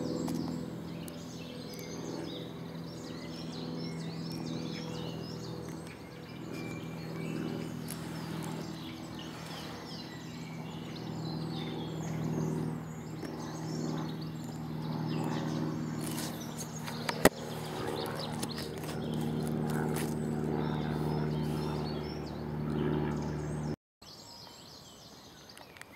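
Small birds chirping and singing in woodland over a steady low hum, with one sharp click about two-thirds of the way through.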